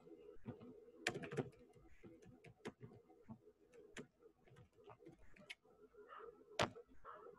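Faint, irregular computer keyboard and mouse clicks, in an uneven run with one sharper click near the end, over a low steady hum.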